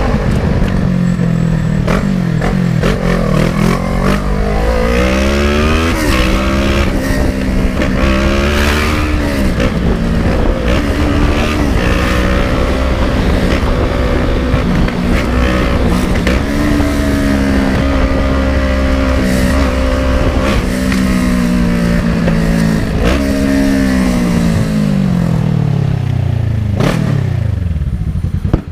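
Kawasaki ER-6n's 650 cc parallel-twin engine being ridden. It revs up and eases off several times as it pulls through the gears, holds a steady pitch for long stretches, then falls away steeply near the end as the bike slows down.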